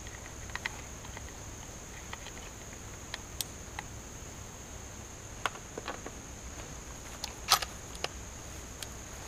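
Scattered small clicks and taps from handling the rifle and gear at the shooting bench, the loudest about three quarters of the way through, over a steady high insect drone and a low outdoor rumble. No shot is fired.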